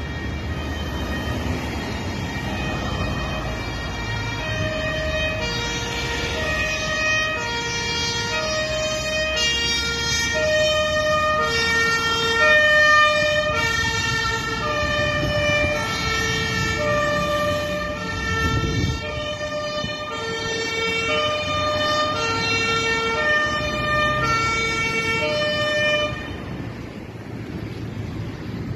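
Two-tone siren of a fire brigade aerial ladder truck on an emergency run, stepping between a high and a low note about every three-quarters of a second, over engine and road rumble. It grows louder towards the middle as the truck passes, then fades, and cuts off about 26 seconds in.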